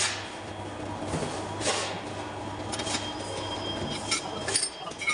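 Machine-shop noise around a lathe: a steady machine hum with several short, harsh metallic noises spread through it.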